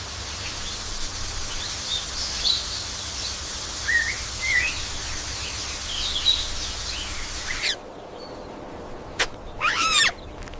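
Birds chirping over a steady outdoor hiss, which cuts off abruptly about three-quarters of the way through. Near the end come a sharp click and a brief, loud sweeping sound.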